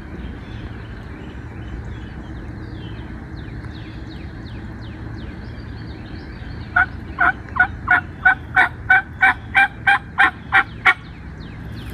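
A run of about a dozen turkey yelps, evenly spaced at about three a second, starting about seven seconds in.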